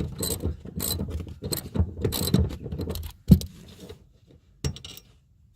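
Ratchet spanner clicking in quick repeated strokes on a seat bolt that has stopped tightening, then a sharp metal knock and a lighter one.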